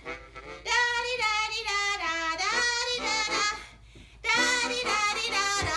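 A high, wavering tune played into a small instrument held to the mouth. The pitch slides up and down in short phrases, with two brief breaks.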